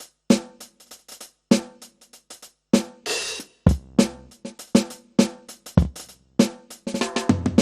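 Electronic drum kit's sound module (dbdrums db10 V3) giving out sampled kick, snare and hi-hat in a steady beat. A cymbal rings about three seconds in, and a quick run of hits comes near the end.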